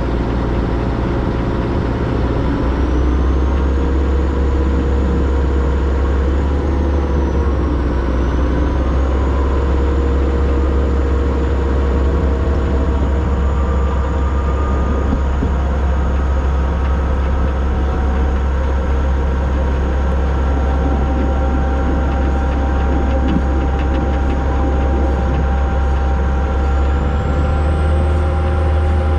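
Narrow-gauge steam train under way, heard from the locomotive: a steady, loud low rumble of running and rolling noise with faint steady whines above it.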